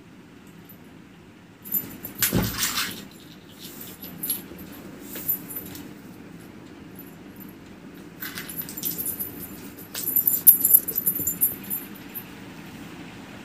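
Kittens play-fighting on a concrete floor: irregular bursts of light jingling and scuffling, with one thump about two seconds in, over a low steady hum.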